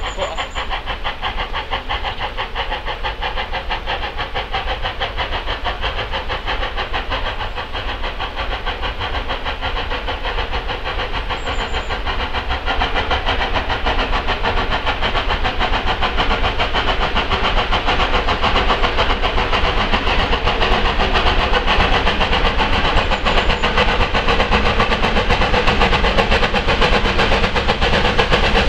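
Steam locomotive Renishaw Ironworks no.6 working with a train of wagons, its exhaust beating in a fast, even rhythm that grows steadily louder as it draws nearer.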